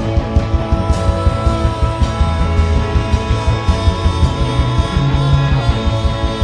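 A rock band playing live with electric guitars, bass and drums over a steady beat, with no vocals.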